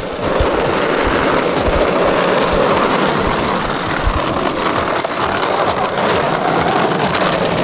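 Hard casters of a mechanic's creeper rolling fast over rough asphalt: a steady, loud rattling rumble that sets in about half a second in.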